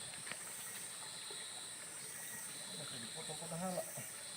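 Steady insect chorus, a continuous high-pitched buzz, with a brief faint voice-like sound about three and a half seconds in.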